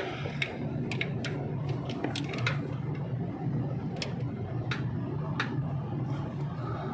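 Hand tools clicking and clinking on metal as the A/C compressor's mounting bolts are undone, with sharp, irregular clicks over a steady low hum.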